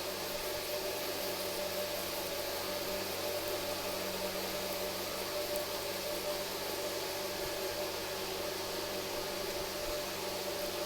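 Steady hiss with a faint even hum, unchanging throughout and with no distinct clicks or knocks: background noise of a fan or similar machine in a small room.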